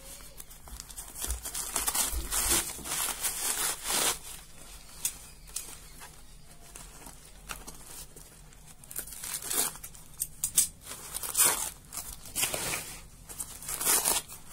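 Newspaper and plastic packing wrap being torn and crumpled by hand, in irregular bursts of tearing and crinkling, with a quieter stretch about five to eight seconds in.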